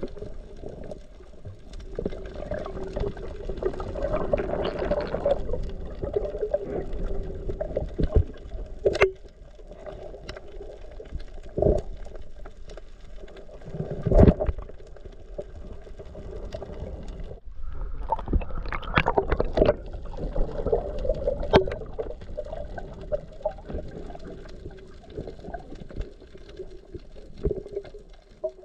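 Muffled underwater sound picked up by a camera below the surface: water movement and bubbling with a steady low drone. Scattered sharp knocks come through, the loudest about fourteen seconds in.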